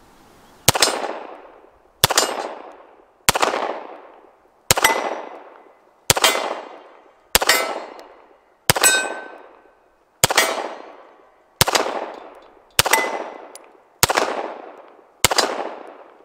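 Twelve shots from a Beretta 92X Performance 9mm pistol in slow, aimed fire, about one every one and a third seconds. Each shot is followed by an echo that fades over about a second.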